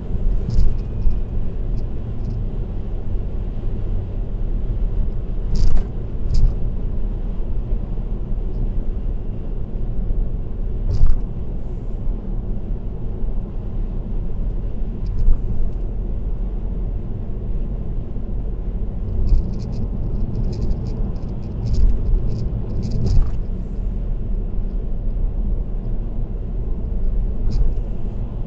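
Road noise of a car driving on an expressway: a steady low rumble from tyres and engine, with scattered short clicks and knocks, bunched together about twenty seconds in.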